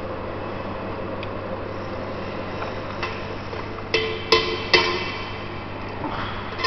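A steady low hum, then three sharp metallic knocks in quick succession about four seconds in, each leaving a short ringing tone, like a steel tool striking metal parts at a lathe.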